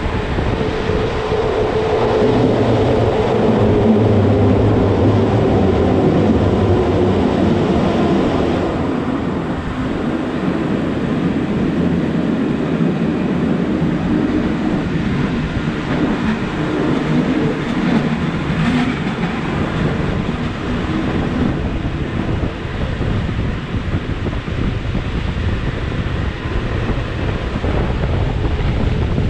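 Rhaetian Railway passenger train running on the Bernina line, heard from outside a carriage window: a steady rumble of wheels on rail with wind on the microphone. A whining tone sounds over it for the first several seconds and again near the middle.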